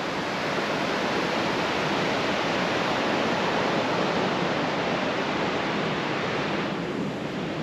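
Surf breaking and washing up a sandy beach: a steady, even rush of waves with no single wave standing out.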